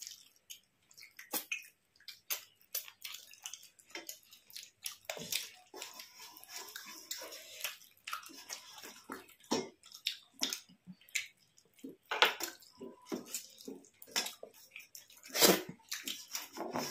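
Close-up eating sounds of people eating a rice and fish curry meal by hand: chewing, mouth and lip smacks, and the food being handled on the plate. It is a run of irregular short clicks and smacks, busiest about twelve seconds in and again near the end.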